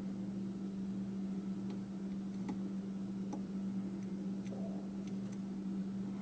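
A handful of faint, irregular clicks from a lock pick working the pin stack of an American Lock 5200 pin-tumbler padlock, over a steady low hum.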